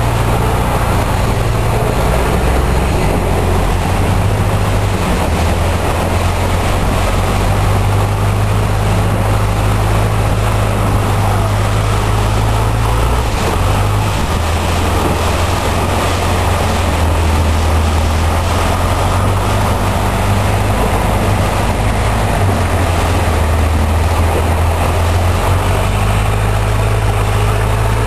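Long-tail boat engine running steadily under way, a loud low drone whose pitch shifts a little now and then, with a steady rushing hiss over it.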